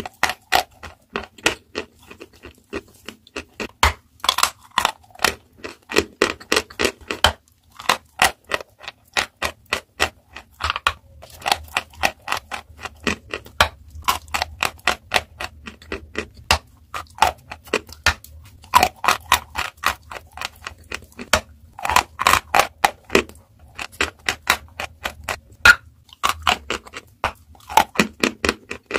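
Dry block of eating chalk being bitten and chewed: rapid crisp crunches, several a second, with short pauses between bites.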